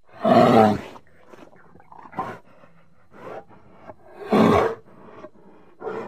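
Grizzly bear calling: two loud roars about four seconds apart, the first right at the start, with quieter calls between them and another beginning near the end.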